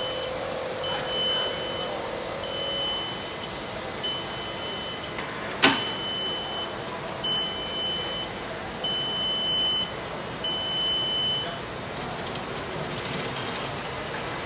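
Warning beeper of a Fred Compact AGV sounding one steady high beep about every second and a half as it drives itself under a cart. A sharp knock comes about five and a half seconds in, the beeping stops a few seconds before the end, and there is some light clatter near the end.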